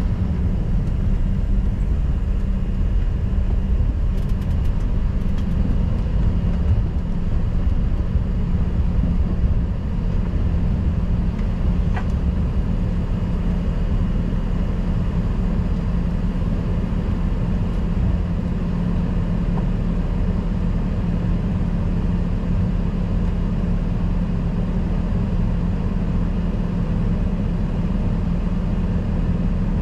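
Steady drone inside the cabin of an Embraer ERJ-145 before takeoff: a low rumble with a constant hum from the jet's engines and air conditioning. A single faint click comes about twelve seconds in.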